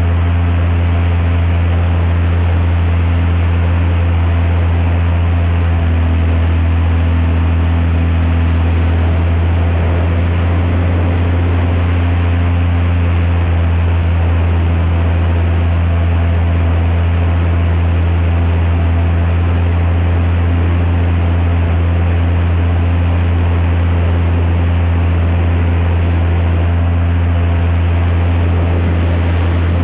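Airboat's aircraft engine (a Lycoming) and propeller running at a steady cruise: a loud, unchanging low drone with a rushing noise over it.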